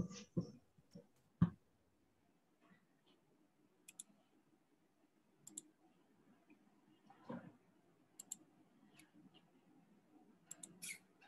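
Faint scattered clicks, several in quick pairs, with a few soft knocks in the first second and a half and another about seven seconds in, over quiet room tone.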